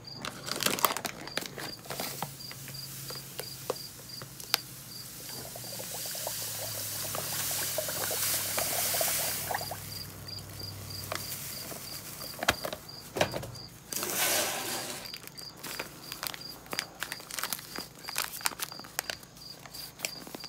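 Granulated cane sugar poured from a paper bag into a pitcher of water: a swelling hiss of pouring sugar, with rustles and clicks of the bag being handled. A cricket chirps steadily in the background.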